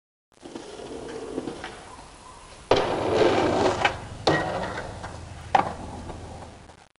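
Skateboard wheels rolling, louder from a little under three seconds in, with several sharp clacks of the wooden board hitting the ground.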